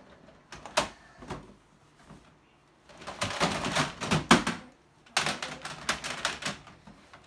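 Hard plastic toy guns clicking and clattering as they are handled and moved about: a few single clicks, then two longer runs of rapid rattling and knocking.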